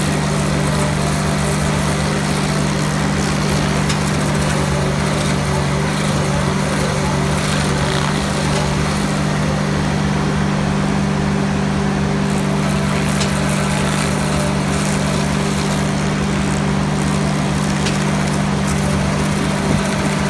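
Hydraulic mini stump grinder attachment grinding a tree stump, driven by the carrier machine's engine, which runs steadily under load with a low drone. A few faint ticks sound through it.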